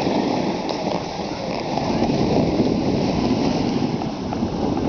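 Snowboard sliding and scraping over snow on a downhill run, a steady rushing noise mixed with wind buffeting the microphone.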